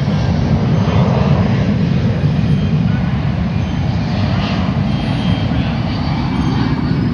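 Boeing C-17 Globemaster III military transport jet flying low overhead: a loud, steady low rumble from its four turbofan engines, peaking about a second in.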